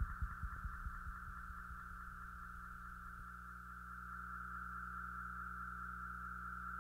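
Electronic output of a Korg Electribe ESX-1 through a Digitech Obscura delay pedal: the last echoes of a pulsing beat die away in the first second or so. That leaves a steady high tone over a low hum, which grows slowly louder in the second half.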